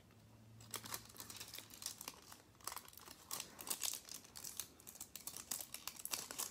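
Faint crinkling of a thin sheet of silver holographic nail transfer foil being pressed onto a fingernail and handled, a scattered run of small crackles that grows busier about two and a half seconds in.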